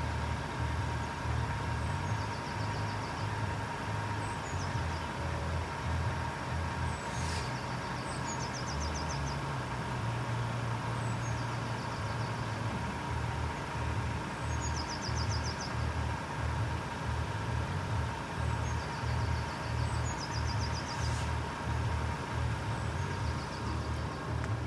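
Level crossing warning alarm sounding a steady tone at its reduced night-mode volume, with a low rumble underneath. Small birds sing short repeated trills throughout, and two brief clicks come about seven seconds in and near the end.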